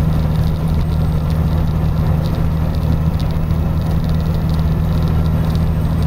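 Steady low drone of a car driving, heard from inside the cabin: engine hum and tyre noise on a snow-covered road, with faint scattered ticks.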